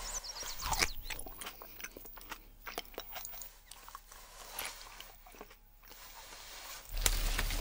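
A person biting and chewing a small crisp fruit: a run of short, irregular crunches and mouth clicks, strongest about a second in. Near the end a louder low rumbling noise comes in.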